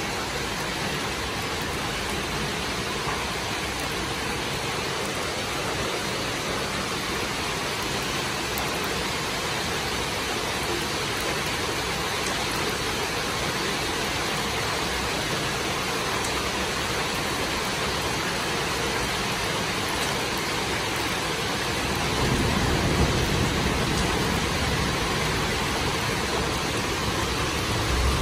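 Heavy rain pouring steadily, a dense even hiss. From about two-thirds of the way in, a low rumble rises under it and it gets a little louder.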